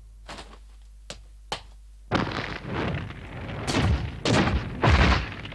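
Anime sound effects for a green flame energy attack: a few short sharp swishes in the first two seconds, then a loud rushing blast starting about two seconds in that surges in waves, with the heaviest boom near the end.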